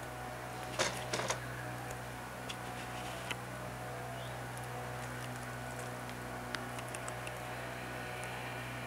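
Wooden hive frames and boxes knocking and clicking as they are handled, a quick cluster of sharp knocks about a second in and a few lighter ticks after, over a steady low hum.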